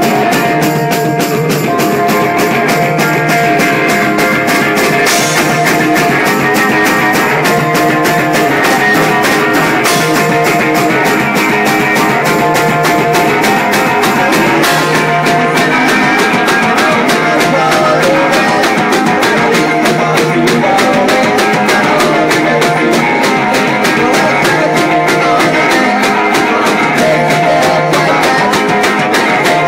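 Live rock band playing: guitar and drum kit with a steady beat, and a singer's voice.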